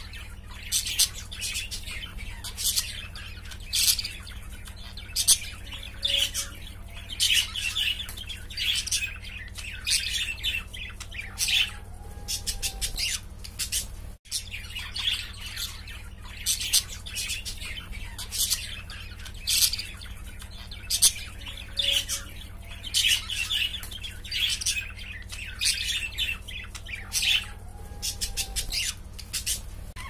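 Caged budgerigars chirping and chattering in quick runs of short, high chirps, over a steady low hum.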